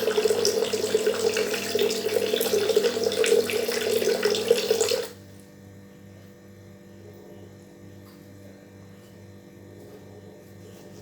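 Water running from a gallon water dispenser's tap into a kettle, a steady rush that stops suddenly about five seconds in. A faint steady hum remains afterwards.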